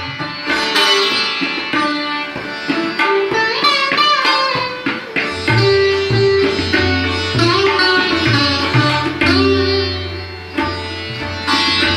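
Sitar playing Indian classical music: plucked notes, some bent in sliding glides, with a deep low tone joining about five seconds in.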